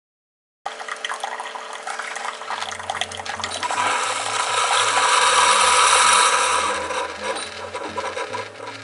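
Surf washing in, starting suddenly after a moment of silence, swelling to its loudest about six seconds in and then easing off. Soft background music with slow, changing bass notes runs underneath.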